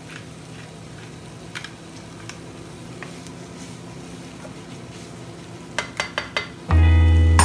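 Tofu and onions frying in a nonstick wok: a steady soft sizzle with a wooden spatula stirring and scraping, and a quick run of sharp taps near the end. Background music comes in just before the end.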